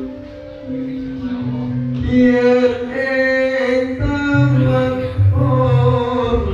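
Background music: a song with held instrumental notes and a bass line, and a singing voice coming in about two seconds in.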